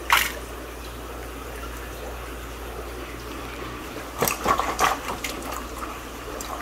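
Aquarium water splashing as a hand works a cichlid in the water: one sharp splash just after the start, then a quick run of splashes and drips about four to five seconds in, over a steady hiss.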